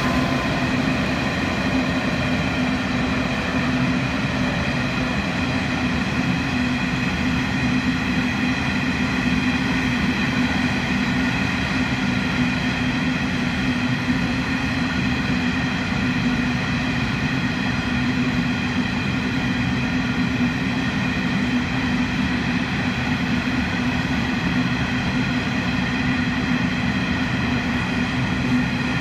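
Loaded limestone hopper wagons rolling steadily past on the rails, with the constant drone of the train's TT-class diesel-electric locomotives working at full throttle (notch 8) underneath.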